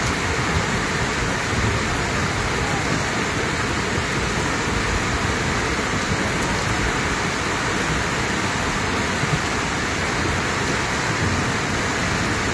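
Steady rush of the Samalá river in flood, its swollen, muddy water running fast, with rain falling. The river is still rising and now covers its sandbanks.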